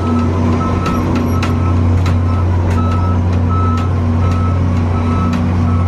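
Shuttle cart's warning beeper sounding about twice a second as the cart rolls, over its steady low running hum and occasional rattles.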